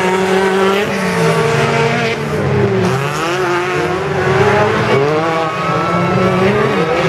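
Several autocross cars' engines running hard at once, their pitch rising and falling repeatedly as the drivers accelerate and lift.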